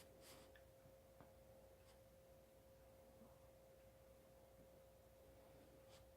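Near silence: a faint, steady, high-pitched hum, with a few faint brief hisses and ticks near the start and near the end.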